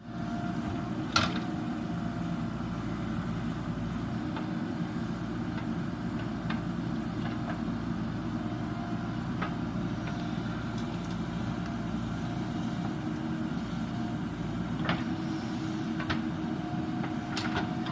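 Heavy diesel machinery engine running steadily, with a few sharp knocks, the loudest about a second in.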